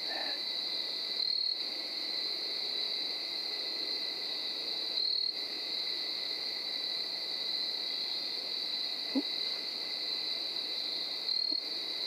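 A steady, high-pitched chorus of night insects such as crickets, unbroken throughout, with a brief faint sound about nine seconds in.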